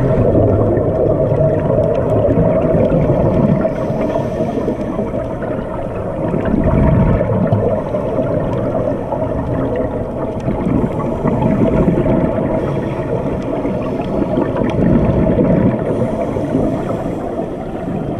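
Scuba regulator breathing and bursts of exhaled bubbles, heard underwater as a dense muffled rumble through a waterproof camera housing, swelling and easing every few seconds.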